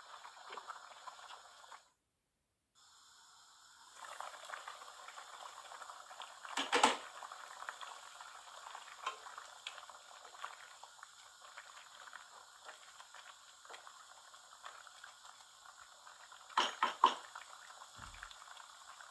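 Salmon fish-head curry simmering in a pan, a steady soft bubbling. A sharp knock about seven seconds in and a quick run of knocks near the end stand out over it, and the sound drops out for a moment about two seconds in.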